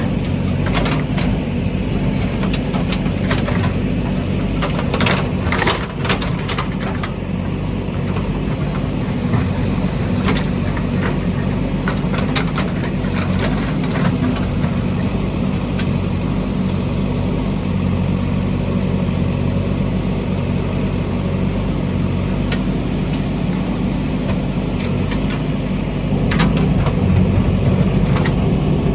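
A JCB backhoe loader's diesel engine runs steadily, with scattered sharp knocks and clatters over it. The engine grows a little louder near the end.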